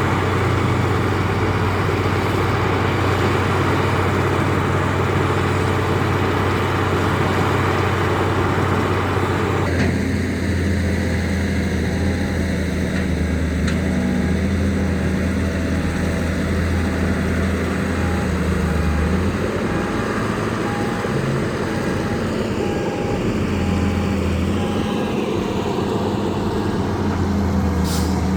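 Heavy diesel engines of excavators and dump trucks running steadily, their pitch and load shifting about ten seconds in. A faint beep repeats about once a second for a while after that, and a few sharp knocks come near the end.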